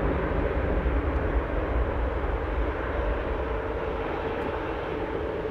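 Jet engines of a twin-engine airliner on its landing rollout, a steady rumbling roar that slowly fades as the jet decelerates down the runway.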